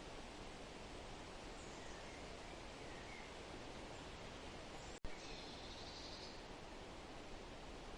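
Forest ambience: a steady rustling hiss with birds calling faintly, a few short chirps in the first half and a clearer call lasting about a second just after a brief dropout and click about five seconds in.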